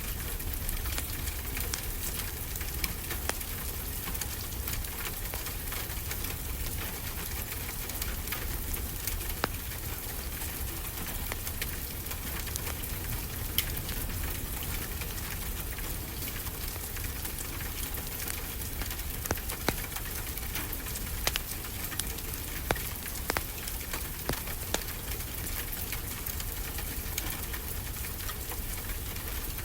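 Steady rain hissing with a wood fire crackling, sharp pops scattered through it and a cluster of louder pops in the second half, over a low rumble.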